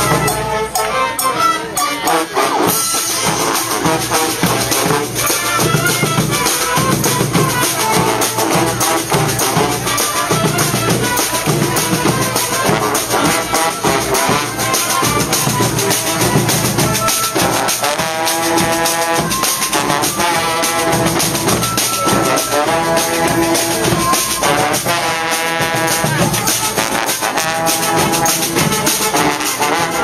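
Brass street band playing live and loud: trombones and a sousaphone over a steady drum beat with shakers, the horn lines coming through most clearly in the second half.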